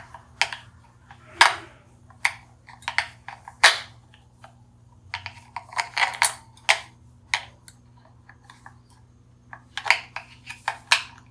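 Irregular clicks and knocks of small hard plastic parts being handled, some sharp and loud, in scattered clusters. A faint steady low hum runs underneath.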